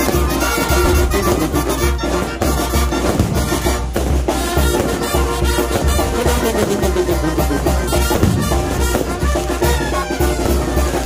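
Music with brass and drums over a steady pulsing bass beat.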